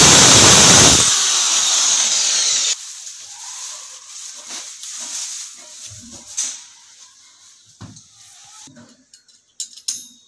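Electric drill with a masonry bit boring into ceramic wall tile, a loud grinding noise that drops about a second in to a lighter spinning sound and stops nearly three seconds in. Then faint taps and clicks of hands handling wall plugs and fittings against the tile.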